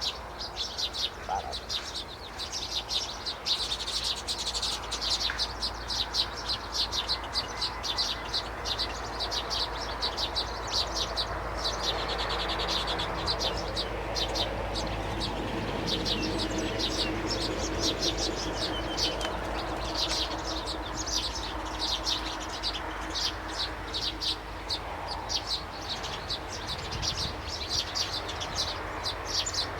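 A flock of small birds chirping and chattering without a break, many short, high calls overlapping, with a faint low hum underneath.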